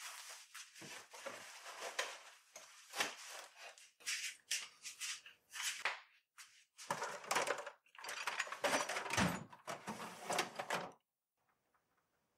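Scattered knocks, clicks and rustling of someone moving about a small garage and handling things.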